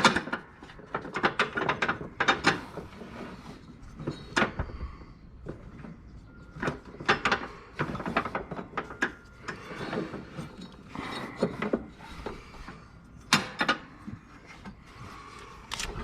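Irregular clicks, knocks and scrapes of metal parts being handled and fitted on a lawn tractor's mower deck, with a few quick runs of clicks.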